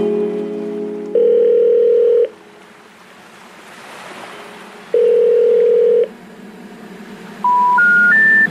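Electronic beep tones: music trails off at the start, then a long flat beep, a soft whoosh that swells and fades, a second long beep of the same pitch, and three short beeps stepping up in pitch near the end.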